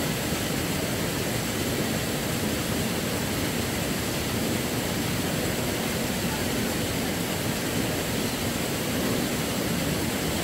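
Steady rush of a shallow river running over rock ledges and small rapids.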